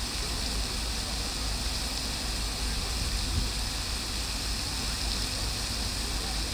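Triton Fountain's jets splashing steadily into its basin: an even rush of falling water over a low rumble.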